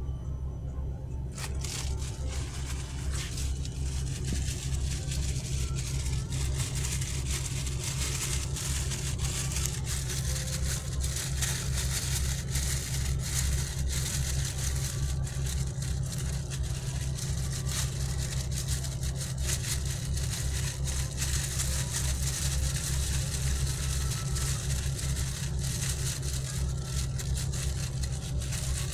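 Water at a rolling boil in an uncovered electric pot full of fish balls, bubbling and hissing steadily with a dense crackle, over a steady low hum. The bubbling hiss grows louder about a second in.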